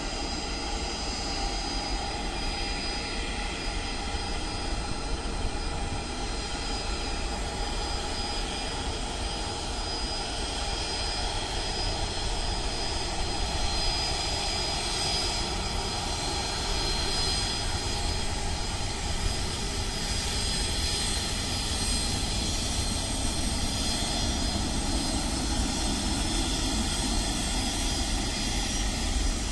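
Boeing 737-800's CFM56-7B turbofan engines running as the airliner rolls along the runway after landing: a steady jet rush with a high whine held over it.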